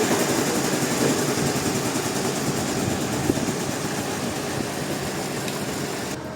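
Sawmill machinery engine running steadily, slowly getting quieter, with the sound changing abruptly near the end.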